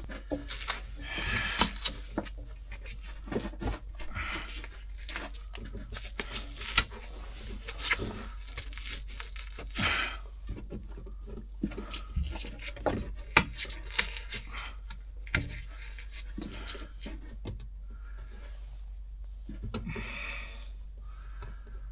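Material being cut and torn away by hand to enlarge an access hole beside a leaking bathtub drain: irregular scraping, ripping and sharp snaps, in uneven bursts.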